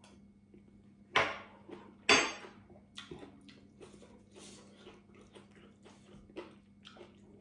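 A person eating spoonfuls of fish curry: two loud sharp slurps about one and two seconds in, then soft chewing with small mouth clicks.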